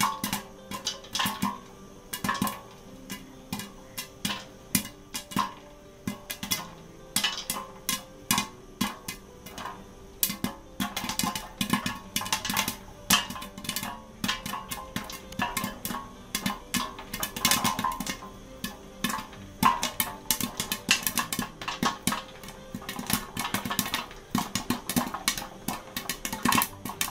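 Popcorn kernels popping inside a covered aluminium pot: sharp, irregular pops knocking against the lid, sparse at first and coming much faster from about ten seconds in. Background music plays underneath.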